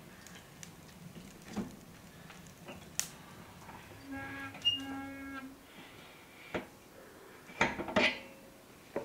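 Metal clicks and knocks of a wood stove's cast-iron door being shut and latched with a detachable handle, with a short two-part squeak about four seconds in. Near the end the loudest sounds are metal clanks as the handle is dropped into a small tin cup.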